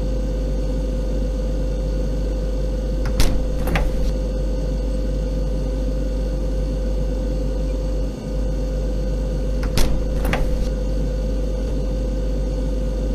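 Steady refrigerator hum heard from inside the fridge: a deep drone with a constant mid-pitched tone. Twice, about 3 seconds and 10 seconds in, comes a pair of sharp clicks half a second apart.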